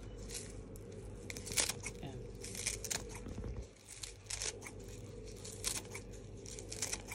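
Kitchen scissors snipping through a bunch of green onion stalks: a series of short, crisp cuts at uneven intervals, with a steady low hum underneath.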